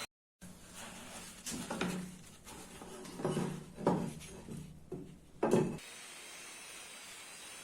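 A handful of irregular rubbing and scraping strokes on a workpiece during restoration handwork, the loudest near the middle, cutting off suddenly into a steady hiss.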